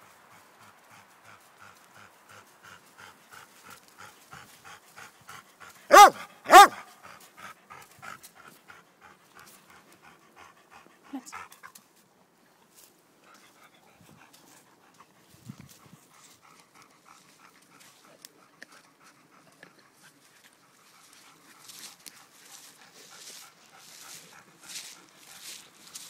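A dog panting in a steady rhythm, with two loud barks in quick succession about six seconds in.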